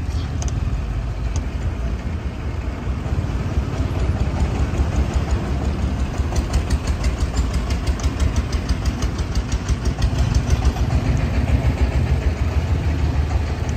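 Car engine idling with a low rumble, heard from inside the cabin with the side window lowered. A fast, even pulsing beat joins it from about five seconds in.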